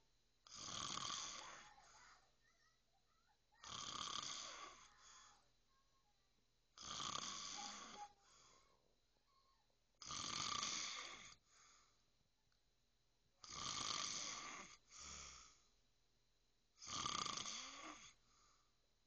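A person snoring in a steady rhythm: six snores about three and a half seconds apart, each lasting about a second and followed by a shorter, softer breath.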